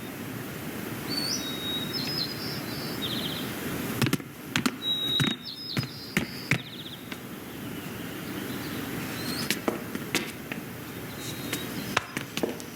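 Film sound-effects ambience: a steady low hiss, with two short runs of high chirps ending in a quick trill, and scattered light clicks and taps.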